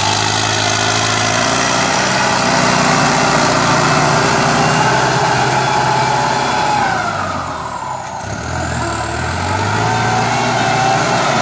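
Turbocharged Ford tractor diesel engine working under load as it pulls a disc plough through dry soil, with a faint high turbo whine above the engine note. The sound drops briefly about eight seconds in and then comes back up.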